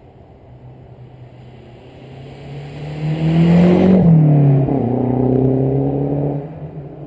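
2013 Mazdaspeed 3's turbocharged four-cylinder, breathing through a catless test pipe and resonated cat-back exhaust, accelerating past close by. The exhaust note climbs as the car approaches and is loudest as it passes about four seconds in. It then drops in pitch and fades away.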